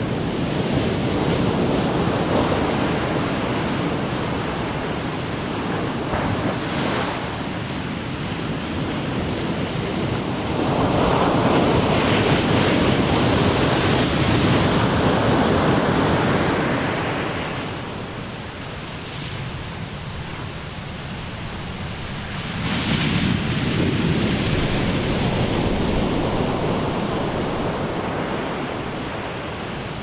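Big ocean waves crashing on the shore, the surf swelling and ebbing in long surges. The loudest wave breaks about a third of the way in, a quieter lull follows, and another wave crashes about three-quarters of the way through.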